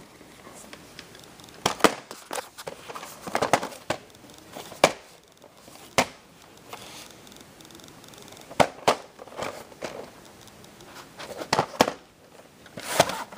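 Hands handling a VHS tape and its cardboard sleeve: scattered sharp clicks with short bursts of crackling rustle.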